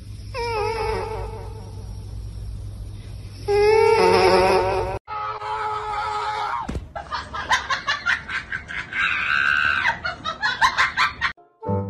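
A kitten mewing with its face against a karaoke microphone: wavering, drawn-out cries, a fainter one and then a louder one. After that comes a busy mix of cries and voices with sharp knocks.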